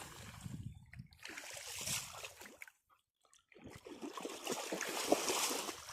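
Water splashing and sloshing in irregular bursts as golden retrievers play in it, with a short break a little before halfway.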